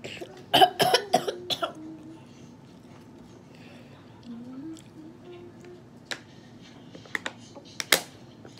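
A short run of sharp coughs about a second in, from the burn of hot-sauce-spiced instant noodles. A few separate clicks follow near the end as a plastic water bottle is raised and drunk from.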